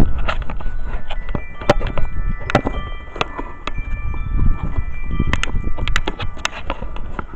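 Wind chimes ringing in gusty wind, several tones overlapping and lingering, over the rumble of wind on the microphone and scattered sharp ticks.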